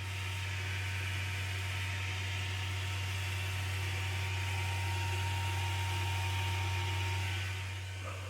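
Prusa MMU3 multi-material unit making a steady low hum with a thin high whine and hiss over it while booting up, an unexpected noise at power-up; the whine drops out about seven seconds in.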